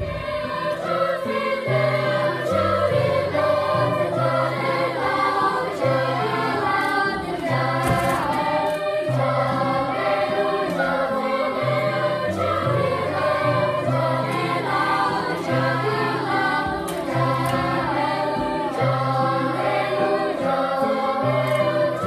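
Children's choir singing a song together, over a low accompaniment whose bass notes repeat in an even pattern.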